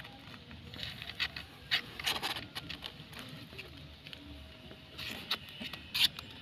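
Nursing kittens shuffling and pawing in a cardboard box: irregular soft scratches and taps, with louder clusters about two seconds in and again near the end.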